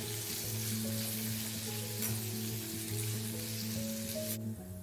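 Diced potatoes sizzling as they fry in hot ghee in a stainless-steel kadhai, a steady hiss that cuts off suddenly near the end, over soft background music.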